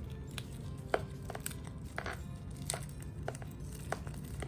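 Plastic wrapping being pulled off a wristwatch: scattered sharp crinkles and clicks.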